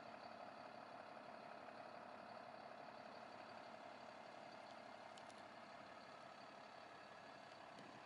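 Near silence: a faint steady hum and hiss, with a few light ticks about five seconds in.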